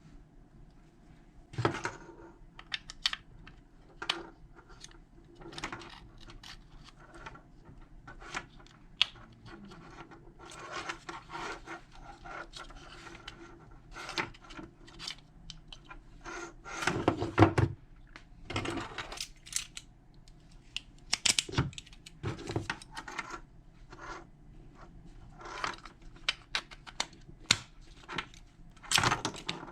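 Irregular clicks, taps and scraping of small metal lock parts being handled, the parts of a Smart Fortwo rear hatch lock cylinder during rekeying, with the loudest clatter a little past the middle.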